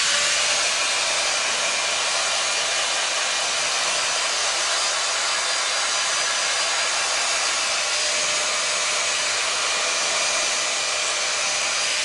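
5-in-1 hot air styler with its dryer attachment, running steadily on its first setting: an even rush of air with a faint thin motor whine.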